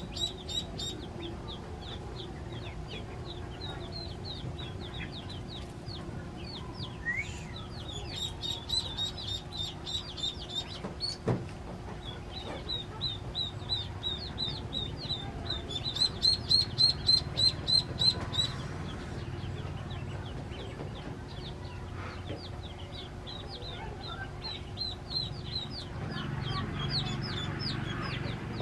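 Newly hatched chicks peeping continuously in short, high chirps that fall in pitch. A loud rapid run of peeps, about three a second, comes around sixteen seconds in, and a single sharp knock is heard about eleven seconds in.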